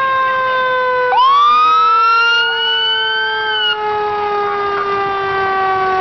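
Fire engine siren wailing loudly as the truck passes, one tone sliding slowly down in pitch throughout. About a second in, a second siren tone sweeps up and holds until it drops away just past the middle.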